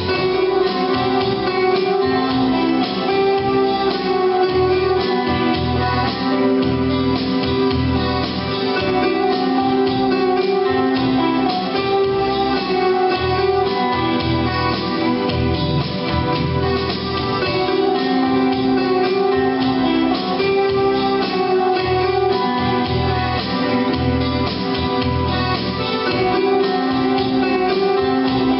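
Instrumental break of a song: music with guitar and keyboard over a pulsing bass, no singing.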